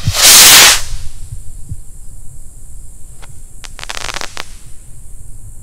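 A Flying Pig firework rocket launching with a loud hissing whoosh lasting under a second. About three seconds later a faint pop and a short spurt of small crackles come from its break, a weak one that the shooter calls a real unimpressor.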